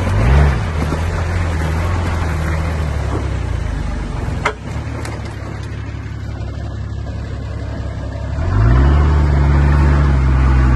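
Four-wheel drive's engine running under load as it crawls through a deep rut, with short rev blips at the start and a single sharp knock about four and a half seconds in. Near the end the revs rise and are held as it climbs.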